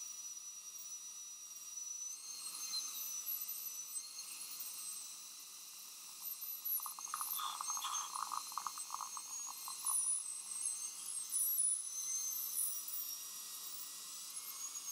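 High-speed dental handpiece whining as its bur cuts the shoulder of a crown preparation on a front tooth, in high-pitched tones that waver slightly. From about seven to ten seconds in there is a stretch of rougher rattling chatter.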